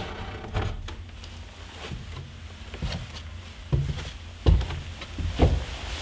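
Footsteps and knocks on old wooden floorboards in a small room, with a few heavier thumps in the second half.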